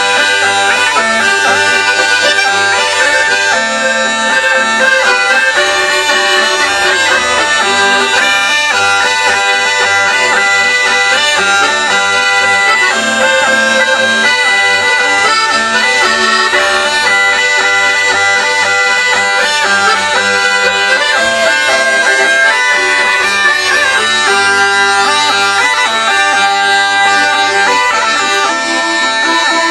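Sardinian folk trio playing live together: a zampogna bagpipe with a steady low drone, launeddas triple cane pipes and a diatonic button accordion (organetto) playing the melody over it.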